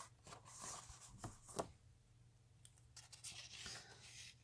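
Faint rustling and rubbing of a comic book's paper cover and pages being handled, with one soft tick about a second and a half in.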